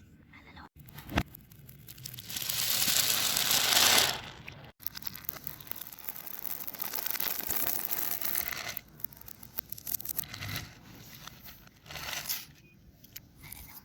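Fidget toys being handled, crinkled and scraped, with the audio played in reverse. A crackling noise swells for about two seconds and stops abruptly, then softer rustling and scraping follows.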